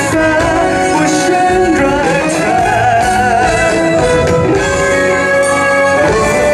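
Live band playing the closing section of a pop-rock song: guitar and singing over drums, loud and continuous.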